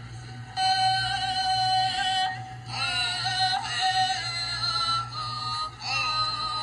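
High voices singing a canoe song with long, wavering held notes, heard through a screen's speakers over a steady low hum.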